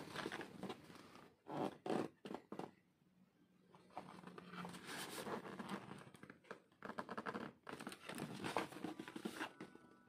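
Cardboard product box being handled and turned in the hands: irregular scrapes, rubs and light knocks of varying loudness.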